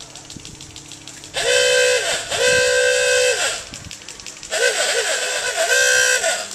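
A loud horn sounding about four blasts of one steady note, each under a second long, in two pairs.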